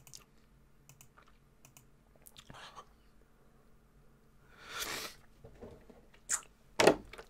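A man breathing unevenly while fighting back tears. There are faint scattered clicks, one loud breath about five seconds in, and two short sharper sounds near the end.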